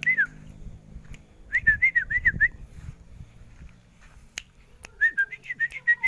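Short whistled notes, each bending up and down, come in quick runs: a few at the start, about six between one and a half and two and a half seconds in, and another run from about five seconds in. Sharp clicks fall between them.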